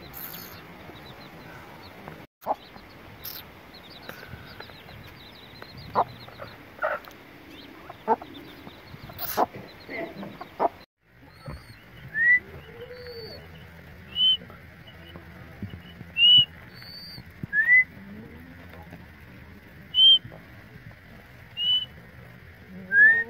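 Hen clucking among peeping chicks, with scattered sharp clicks. After a cut, short high rising chirps come every second or two.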